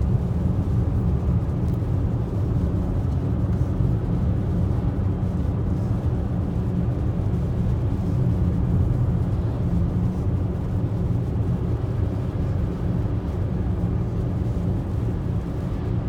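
Steady low rumble of a car's engine and tyres on a snowy road, heard from inside the moving car's cabin.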